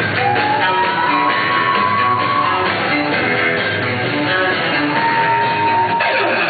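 Bachata music with guitar, playing steadily, with a long held high note near the start and another about five seconds in.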